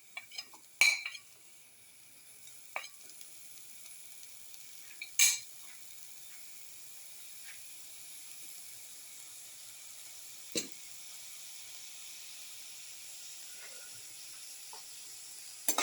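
Sliced shallots frying in hot oil with chili flakes in a pan: a steady sizzle that slowly grows louder. A few sharp knocks against the pan come about 1, 5 and 10 seconds in.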